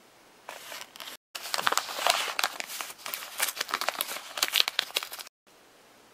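A paper envelope being torn open by hand: dense crinkling and ripping paper with many small sharp crackles. It starts softly about half a second in, grows much louder just over a second in, and cuts off abruptly about five seconds in.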